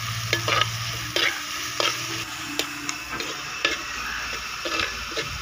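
Chopped onions and curry leaves sizzling in hot oil in a clay pot while being stirred with a steel spoon, the spoon scraping and clicking against the pot at irregular moments.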